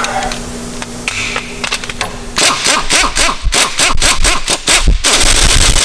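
Pneumatic impact wrench hammering the top nut onto a coil-over strut assembly held in a spring compressor. It starts about two seconds in as a rapid rattle of strokes, then runs on continuously near the end as the nut is driven tight.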